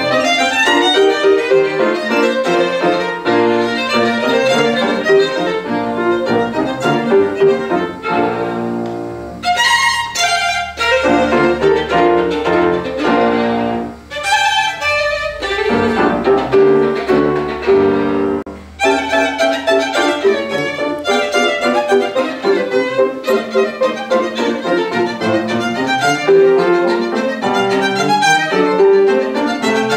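Violin with piano accompaniment playing a classical sonata live, with a few brief breaks between phrases.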